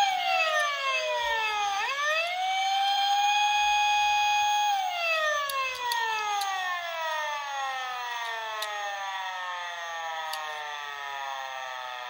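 A siren: its pitch drops, climbs back up and holds, then winds slowly down over the last several seconds.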